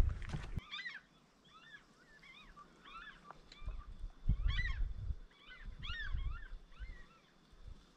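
Birds calling: many short chirping calls that rise and fall in pitch, several overlapping through the whole stretch. A low rumble comes and goes under them.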